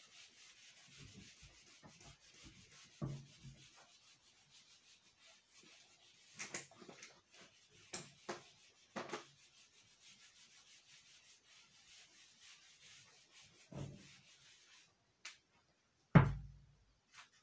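Felt whiteboard eraser being scrubbed quickly back and forth across a whiteboard, a faint steady swishing, with a few soft knocks along the way. About sixteen seconds in, the rubbing stops and there is one loud thump.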